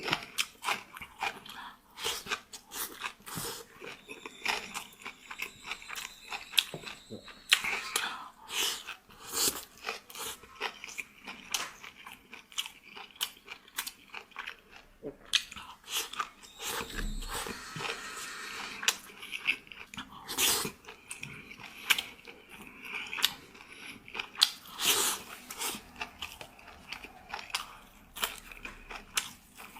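Close-up chewing and crunching of crisp food, many short irregular bites and crunches with small mouth sounds.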